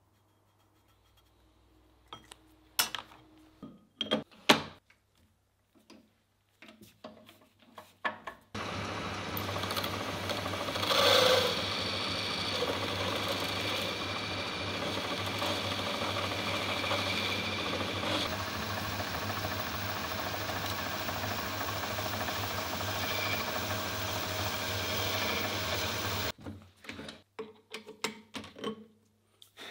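A few sharp clinks and knocks of steel being handled, then a metal lathe runs steadily for about 18 seconds, its cutting tool grooving a steel tube, and stops abruptly. A few more clinks follow.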